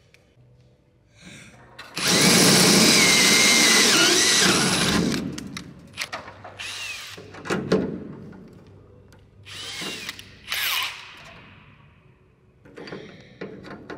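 Cordless drill drilling into aluminium sheet: one long run of about three seconds with a whine, then several short bursts that spin up and down. A quick series of clicks follows near the end.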